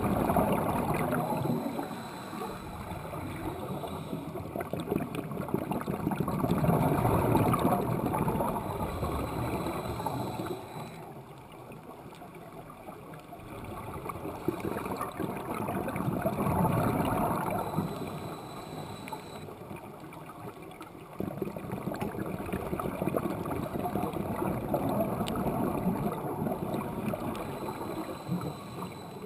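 Scuba regulator breathing underwater: a bubbly rush from each exhalation swells and fades, about four breaths several seconds apart, with a faint thin hiss between them.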